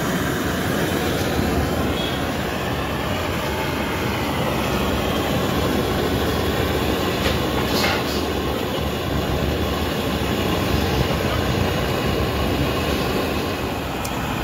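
Gas stove burner running under a tea kettle, a steady loud rushing noise, with a short click about eight seconds in.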